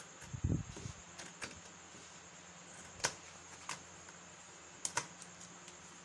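Fabric scissors snipping through cotton wax-print fabric: several short, sharp snips spaced irregularly, with a soft low thump about half a second in.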